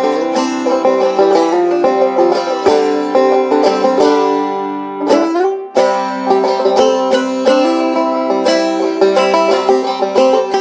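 String-band music led by rapid banjo picking, with no singing. About four seconds in, a chord is held and rings out, then the fast picking starts again.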